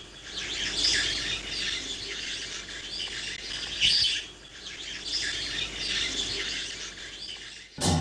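Many small birds chirping and calling together, a dense high twittering that swells now and then and cuts off abruptly near the end.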